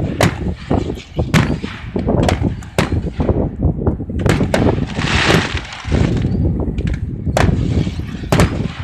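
Fireworks display: aerial shells bursting in a run of sharp bangs, about one every second or so, over a constant low rumble.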